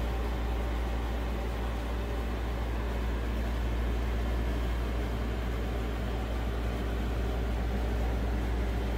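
Steady low hum with an even hiss over it, unchanging throughout: the background drone of a running appliance or motor in the room.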